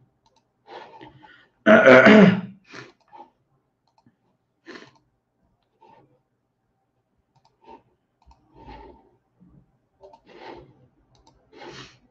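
A man clears his throat loudly about two seconds in, then makes several softer coughs and throat noises, with a few faint clicks between them: the sounds of a scratchy, sore throat.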